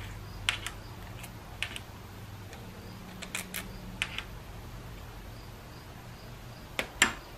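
Small metal tools and valve-body parts clicking and tapping as they are handled on a workbench: scattered, irregular sharp taps, with the loudest pair near the end, over a steady low hum.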